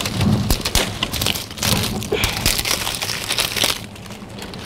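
Twig-and-leaf fire crackling as it catches in the firebox of a homemade brick oven, with dry leaves crackling and rustling as they are pushed in. Busy, irregular crackling that thins out near the end.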